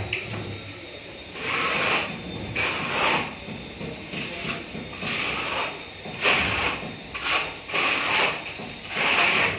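A hand trowel scraping texture paste across a plastered wall in a series of short, irregular strokes, about ten of them.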